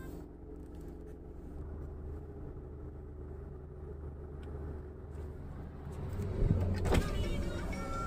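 Car cabin noise while driving: a steady low engine and road rumble. It grows louder about six seconds in, with a brief loud swell. Music comes in near the end.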